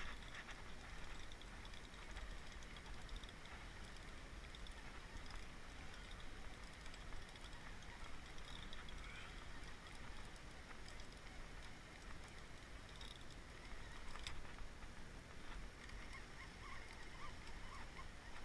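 Steady rushing of fast-flowing, churning river water, heard faintly, with a few faint short chirps near the end.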